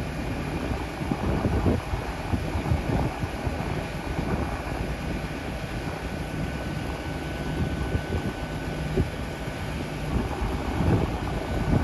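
Wind buffeting the microphone in irregular low gusts over a steady outdoor rush, with a faint thin steady tone running through the second half.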